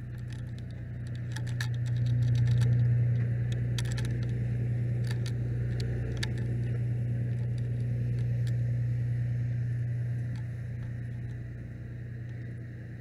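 Fire rescue truck's diesel engine running at a steady idle, a low hum that swells about two seconds in as the wearer walks past the truck and eases off near the end. Scattered clinks of gear sound over it.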